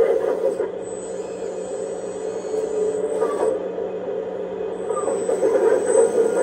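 Kabolite K336 hydraulic RC excavator working its boom and bucket: its sound unit plays a simulated diesel engine through a small speaker, together with the hum of its hydraulic pump. The engine note rises and gets louder near the end.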